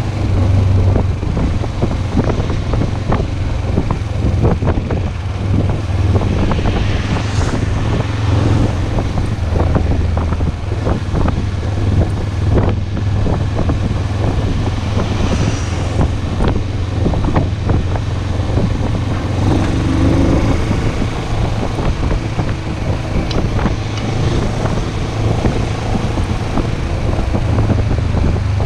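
Wind rushing and buffeting over the microphone of a moving motorcycle, with the engine's steady low drone underneath.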